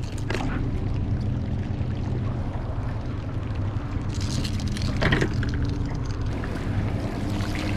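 Steady low hum of an idling outboard motor, with water splashing and trickling. A brief clatter comes about five seconds in.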